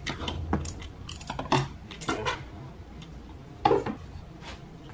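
Ignition coil wiring connectors being handled on top of a VW 1.4L turbo engine: a string of short, sharp clicks and clatters, with a louder one near the end.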